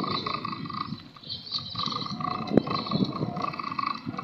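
Rumbling wind and riding noise on the microphone of a moving bicycle. Behind it, a rhythmic pulsing call repeats about three or four times a second.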